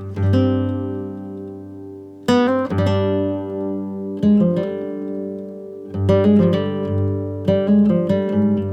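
Background music: a plucked guitar playing chords that ring out and fade, a new chord every second or two.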